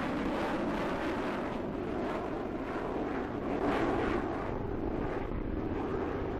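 Lockheed L-1011 TriStar's three turbofan jet engines running steadily as the airliner flies low on final approach to land, swelling slightly about four seconds in.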